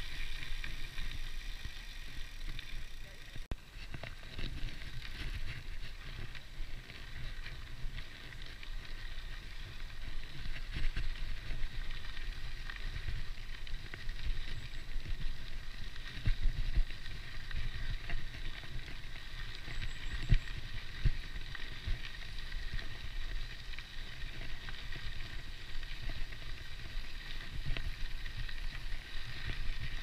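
Mountain bike rolling along a dirt and gravel road: tyres crunching with a steady low rumble and small irregular clicks from the loose surface. Over this runs a steady high buzz from the Hope Pro 4 rear hub's freehub.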